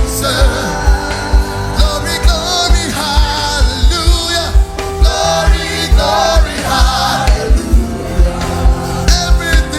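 Live gospel worship music: voices singing over a band, with sustained chords and a steady bass-drum beat about twice a second.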